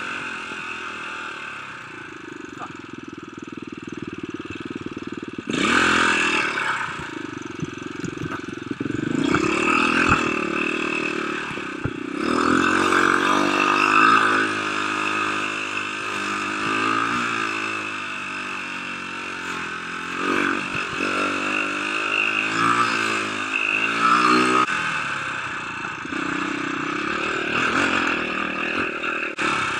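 Dirt bike engine running under load on a trail, its pitch climbing and dropping again and again as the throttle is worked, with a few sharp knocks from the bike over the ground.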